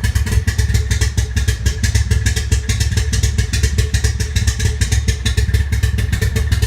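Toyota MR2 Turbo's 3S-GTE turbocharged four-cylinder engine running rough with a fast, even pulsing beat: the engine has a misfire and is running terrible.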